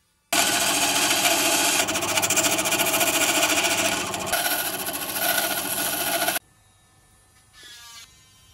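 Small power tool running loudly for about six seconds, with a fast rattling pulse. It starts and stops abruptly.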